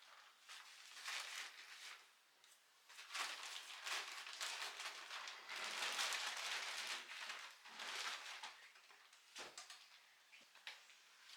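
Handling noises: irregular rustling and crinkling, with a few light clicks and knocks near the end, as of packaging and parts being handled during assembly.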